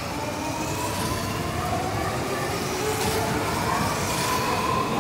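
Hanshin 5700 series electric commuter train pulling out of the station, its traction motors whining in several tones that rise slowly in pitch as it gathers speed, over the rumble of its wheels.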